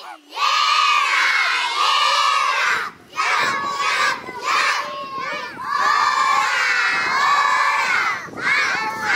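A large group of children shouting together, many voices at once, in long phrases of a few seconds with short breaks between them.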